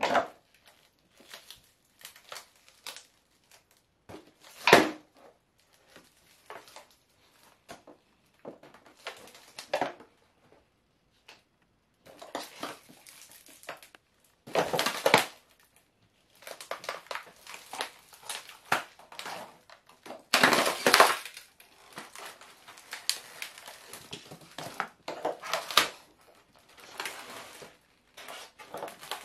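Foam radio-controlled model aeroplane being crushed under stiletto heels: irregular bursts of crunching and cracking foam. The loudest crunches come about 5, 15 and 21 seconds in.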